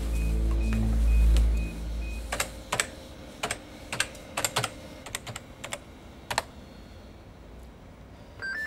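Keys struck on a computer keyboard: about a dozen sharp clicks spread over a few seconds, after a low hum that stops about two seconds in. A few short electronic beeps sound right at the end.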